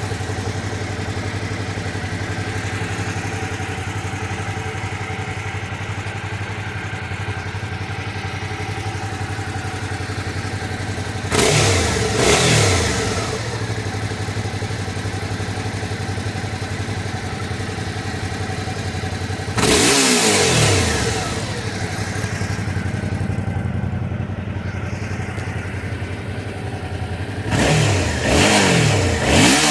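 Suzuki V-Strom 650 XT's V-twin engine idling steadily through its stock exhaust, with the throttle blipped three times: about eleven seconds in, about twenty seconds in, and near the end, where two quick revs come close together, the pitch rising and falling each time.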